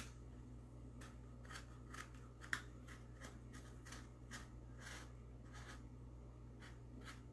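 Faint, irregular scratchy strokes of a black pen drawing around a circle on a pumpkin, with one sharper tick about two and a half seconds in.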